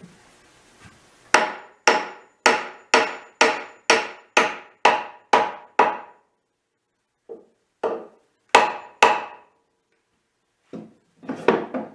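Hammer striking a wooden dowel set in a hole in a cedar tabletop: a steady run of about ten blows, roughly two a second, each ringing briefly, then after a short pause a few more, more widely spaced blows.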